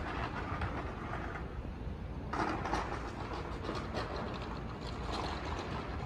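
City ambience heard from above the rooftops: a steady low rumble, with a louder rushing, crackly noise that starts suddenly a little over two seconds in and keeps going, like traffic or a train passing below.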